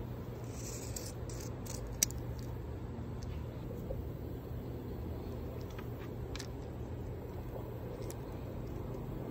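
Small clicks and scrapes of a Daisy Power Line Model 45 CO2 pistol's spring-loaded pellet magazine being handled, with one sharper click about two seconds in and a few lighter ones later, over a steady low hum.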